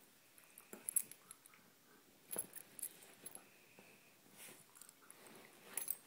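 Two dogs, a Siberian Husky and a Miniature Pinscher, play-wrestling on a bed: short metallic jingles of collar tags about a second in, twice around two and a half seconds, and near the end, over soft rustling of bedding and mouthing.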